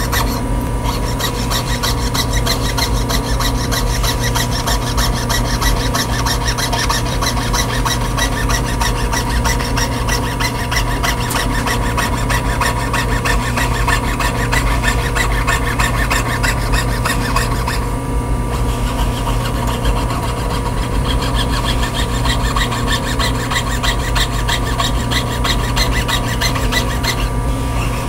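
Jeweler's saw cutting out a metal monogram pendant on a wooden bench pin: fast, steady rasping strokes of the fine blade, with two brief breaks, about two-thirds of the way in and near the end.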